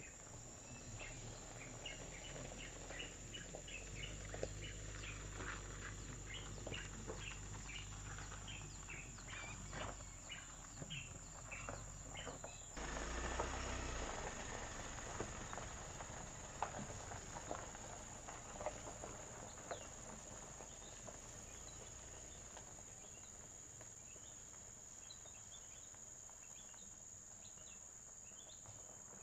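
Outdoor rural ambience: a steady high insect drone with many short bird chirps over it, and a faint low rumble in the first half.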